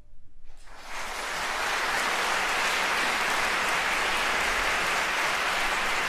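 Audience applause breaking out about half a second in as the last piano and string notes fade. It swells quickly into steady, dense clapping.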